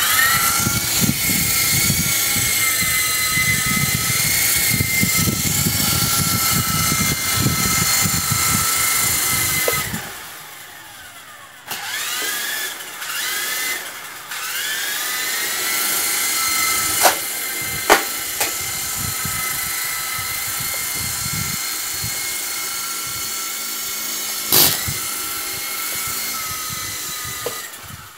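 Electric motors of a small toy RC helicopter whining as its rotors spin, with a low rumble for the first ten seconds. About ten seconds in the whine dies away, then spins up again in several short rising bursts before running steadily, broken by a few sharp knocks.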